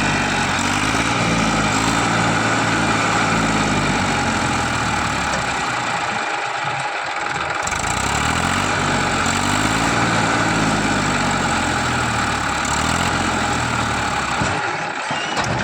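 Tractor diesel engine running under load, its revs rising and falling in two long surges with a short dip between them.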